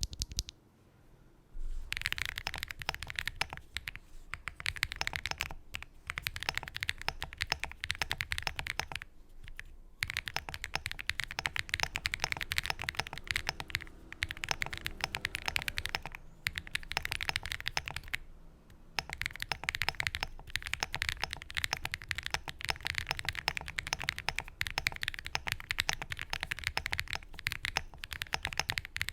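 Typing on a Bridge75 gasket-mount mechanical keyboard with stock MMD Lavender switches, PBT keycaps, an FR4 plate and foam in the case: rapid, continuous keystrokes that start about two seconds in and stop briefly a few times.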